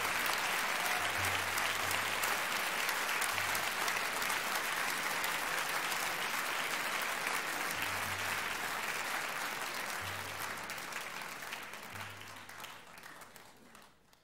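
Audience applauding, the clapping fading out toward the end.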